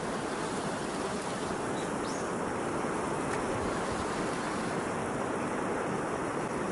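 Strong wind buffeting the microphone: a steady rushing noise.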